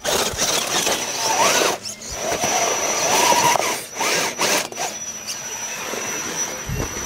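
Small electric motor and gear drive of a radio-controlled rock crawler whining in short spurts that rise and fall in pitch as it is throttled up a rock face, over a steady high whine and a rough hiss.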